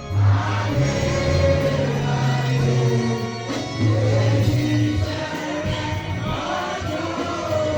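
Gospel music with a choir singing over held bass notes.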